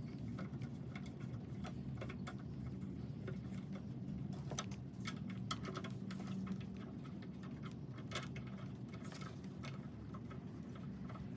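Ratchet wrench clicking in irregular runs of ticks as the bolts of a pressure washer's replacement pump head are run down, over a faint steady hum.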